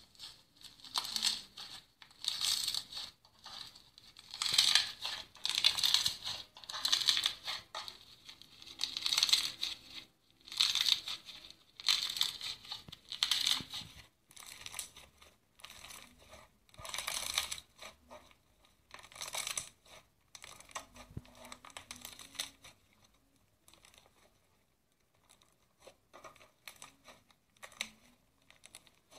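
Iceberg slime squeezed and stretched by hand, its hardened top layer crackling and crunching in bursts about once a second. The crackles are fainter in the second half.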